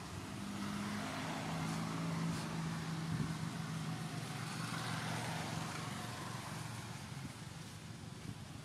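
An engine running steadily, a low hum that fades near the end.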